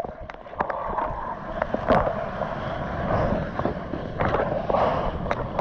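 Seawater splashing and sloshing close to the microphone as a surfboard is paddled through small surf, with wind buffeting the microphone and a few sharper splashes.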